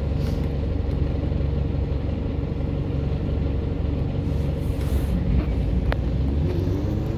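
Volvo B5TL bus's diesel engine idling with a steady low hum as heard from inside the saloon. About six seconds in there is a short click, then a rising whine sets in as the bus starts to pull away.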